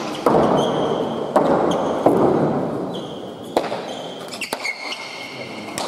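A leather pelota ball in a bare-hand (main nue) rally, struck by hand and hitting the walls of an indoor fronton court. About five sharp smacks ring out over the few seconds, each leaving a hall echo, with short high squeaks of sneakers on the court floor between them.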